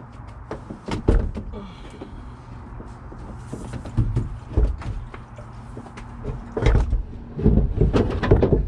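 Large hollow plastic water tank knocking and scraping against the SUV's cargo floor and trim as it is lifted and slid into place: a string of irregular knocks and thumps, heaviest near the end.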